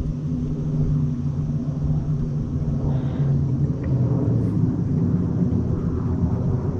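Jet airliner passing overhead: a steady low rumble that holds throughout.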